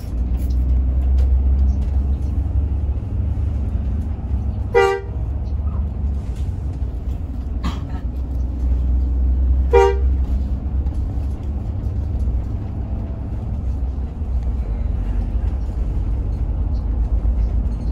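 Steady low drone of a Hino RM 280 coach running, heard from inside the cabin. Two short toots of a vehicle horn, about five seconds apart, stand out as the loudest sounds.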